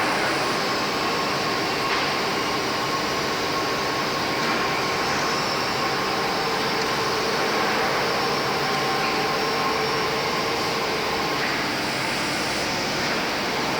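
IMEAS LCSI 190 wide-belt panel sander running steadily, a constant mechanical noise with a faint steady hum.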